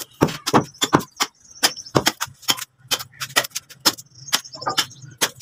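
Butchering a hanging carcass with a knife: a string of sharp, irregular clicks and snaps, two to four a second, as the blade cuts through meat and membrane. Faint high bird twittering comes and goes behind it.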